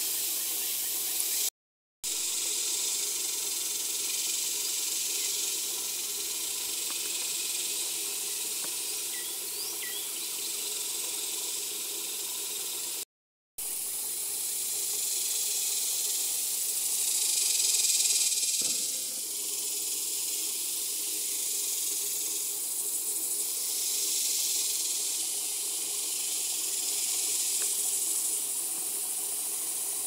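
A chorus of insects: a dense, high hiss that swells and fades in slow waves every few seconds, with a few faint bird chirps about ten seconds in. The sound drops out for a moment twice.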